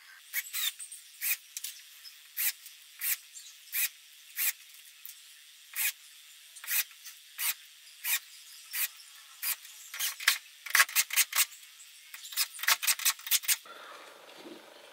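Small sharp clicks, about one or two a second and faster near the end, from screws being set and driven into steel hinges on a wooden rail. A short rubbing sound follows as the rail is picked up.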